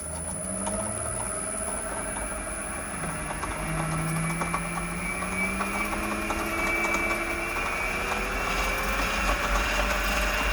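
1930s Delta DP220 drill press, driven through a variable frequency drive, speeding up: the motor and belt-driven spindle give a whine of several tones that rises steadily in pitch and grows gradually louder as it accelerates toward about 1400 RPM.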